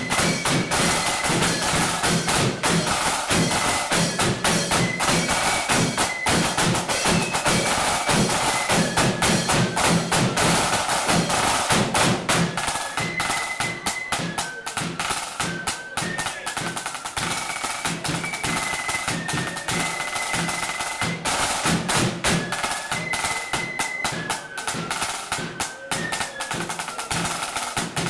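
Marching flute band playing a tune: flutes carry a high stepping melody over rattling snare drums and drum rolls, with bass drum. The playing eases off a little about halfway through.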